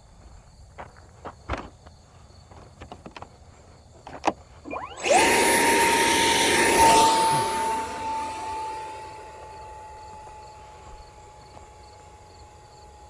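A 50 mm electric ducted fan on 4S spooling up with a quick rising whine about five seconds in. It then runs at a steady high whine with a loud rush of air for a couple of seconds, fading as the hand-launched jet flies away. Before it, a few faint clicks.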